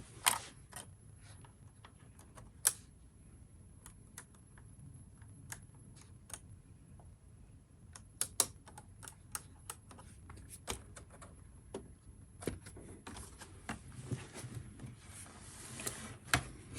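Scattered sharp plastic clicks and taps of laptop parts being handled and fitted together during reassembly, with a quick run of clicks about eight seconds in and a soft rustle near the end.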